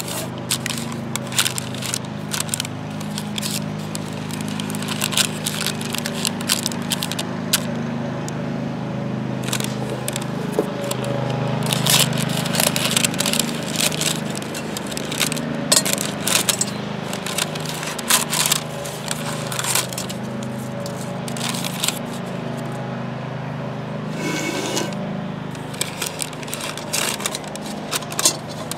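Parchment paper crinkling and rustling in quick irregular crackles as it is pressed and folded into a cast iron Dutch oven, with scissors snipping the paper. A steady low hum runs underneath.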